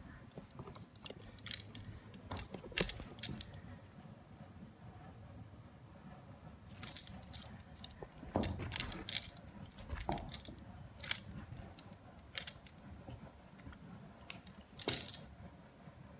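Irregular light clicks, clinks and short rattles as a cat plays with a Neko Flies Birbug wand toy, a few sharper knocks among them.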